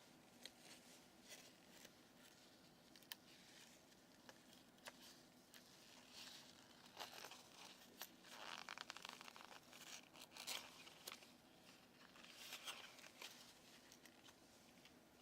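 Faint rustling, crinkling and scattered light clicks of the implant's plastic packaging being handled and opened, heavier in the middle stretch.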